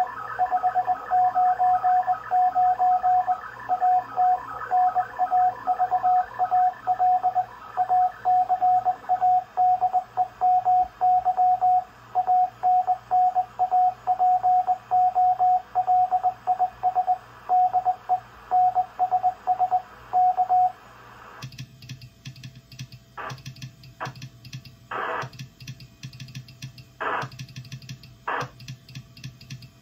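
Morse code (CW) sent on a telegraph key and heard as a single steady tone keyed on and off in dots and dashes. About 21 seconds in the keying stops and the receiver gives way to band noise with short bursts of static crackle.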